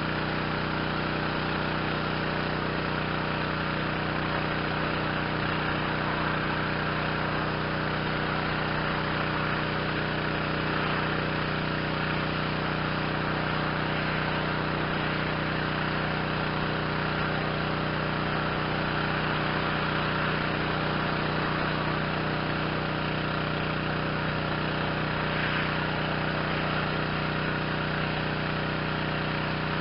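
Yamaha PW4040 gas pressure washer's 357 cc Yamaha MZ360 engine running steadily, at an even level throughout.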